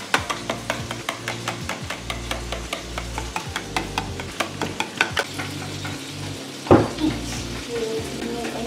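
Wire whisk beating eggs in a plastic bowl, its wires clicking against the bowl several times a second. A single louder knock comes about two thirds of the way through.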